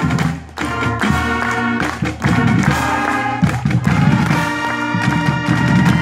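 Marching band playing live outdoors: brass section holding loud chords over drum hits.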